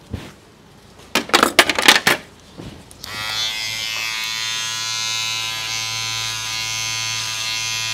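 Electric hair clipper switched on about three seconds in and running with a steady buzz. Before it, a few loud sharp clatters.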